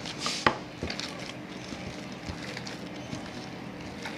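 Hands kneading a soft, moist milk-powder and egg dough in a bowl: faint squishing and rubbing, with one sharp knock against the bowl about half a second in.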